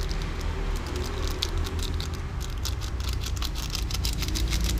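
Plastic seasoning sachet crinkling as ground pepper is shaken from it into a saucepan, heard as light crackles and clicks that come thicker near the end, over a steady low rumble.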